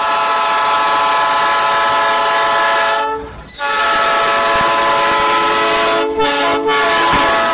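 Diesel locomotive's multi-tone air horn sounding a loud, long chord. It breaks off briefly about three seconds in and twice more near the end.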